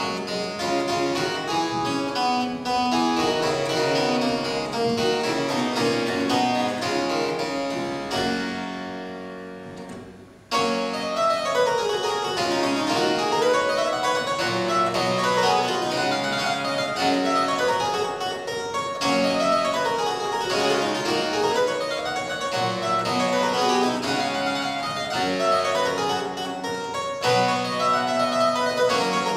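Harpsichord played solo: a chord dies away about a third of the way in, then the playing starts again with fast runs of notes rising and falling up and down the keyboard.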